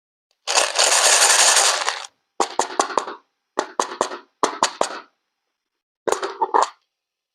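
A hiss lasting about a second and a half, then four short clusters of sharp clicks and taps, as of small objects being handled.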